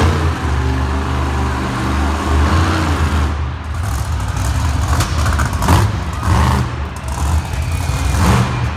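Monster truck engines running with a deep, low rumble, steady at first. From about halfway they rev up and down in uneven surges as the Muddy Girl truck pulls out across the arena floor.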